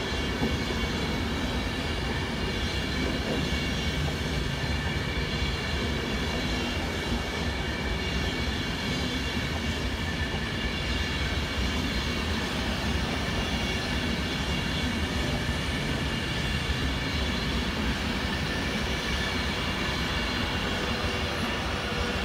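Class 390 Pendolino electric train moving through the station: a steady rumble of wheels on rail with several high, steady whining tones over it.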